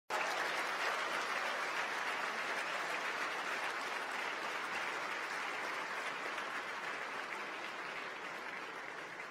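Crowd applauding: dense, steady clapping that slowly dies away.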